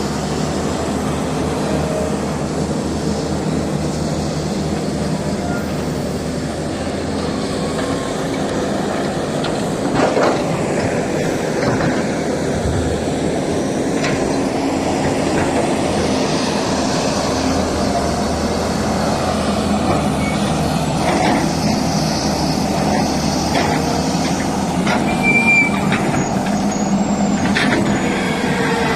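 Heavy diesel machinery running steadily: excavator and dump truck engines working, with a few sharp knocks and clanks along the way.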